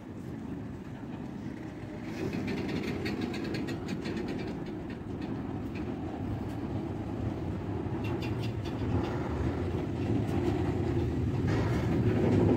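A train passing on the rails: a steady rumble with the clickety-clack of wheels over rail joints, growing louder toward the end.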